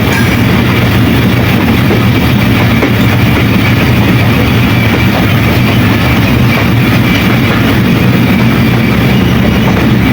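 Diesel locomotive hauling a passenger train, with a loud, steady low rumble of engine and running gear and a thin steady whine above it.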